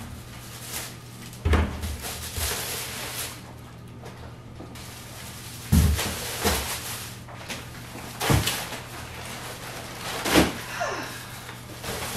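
Household knocks and thumps as groceries are brought in and put away: about five sharp thumps of doors or cupboards shutting and bags being set down, with rustling between.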